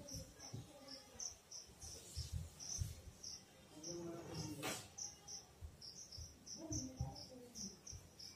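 Soft sniffs and short breathy sounds from a woman trying to make herself sneeze by tickling her nose with cotton, with a brief sharper sniff about four and a half seconds in. Behind them, crickets chirp steadily in rapid high pulses.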